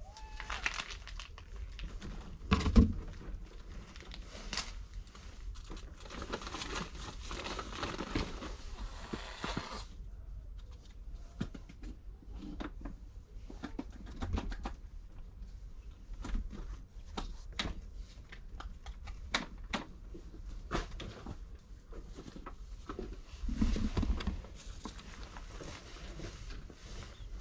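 Cats moving about on a wooden board right by the microphone: scattered paw knocks, scrapes and rustles, with a louder thump about three seconds in and another near the end, and a few seconds of dense rustling in between.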